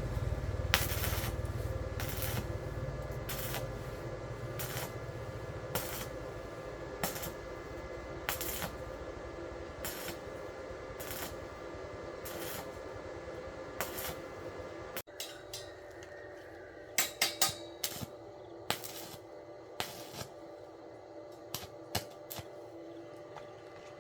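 Light metallic clinks and taps, about one a second, over a steady hum. The background drops suddenly about fifteen seconds in, and after that the taps come in quick clusters.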